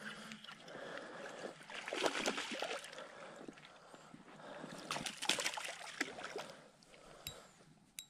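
A small hooked spotted bass splashing and thrashing at the surface by the shoreline as it is reeled in, with the loudest bursts of splashing about two seconds in and again around five seconds.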